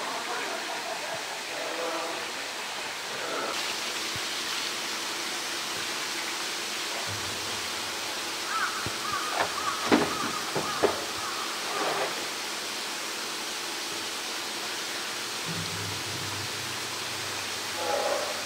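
Steady rush of running water in a polar bear enclosure, with a few sharp knocks about halfway through as the polar bear paws a blue plastic barrel.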